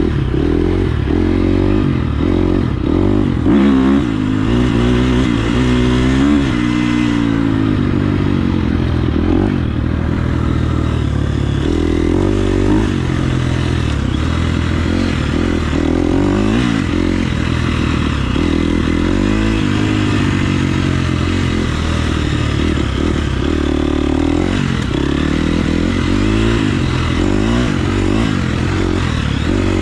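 KTM 350 SX-F motocross bike's single-cylinder four-stroke engine under riding load, revving up and dropping back again and again as the throttle is opened and closed.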